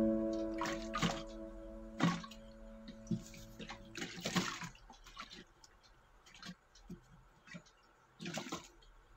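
Water sloshing inside a sealed plastic storage box as it is tipped upside down and shaken, in two short swishes, with a few knocks of hands on the plastic. Sustained background music notes fade out over the first few seconds.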